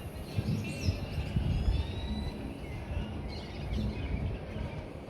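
Wild birds chirping, with a few short falling chirps and one longer rising whistle, over irregular low thumps and rumble from walking down the stairs with a handheld camera.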